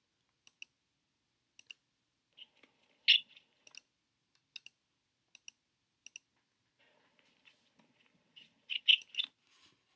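Computer mouse clicks, scattered short sharp clicks, several in quick pairs, as the video player is rewound.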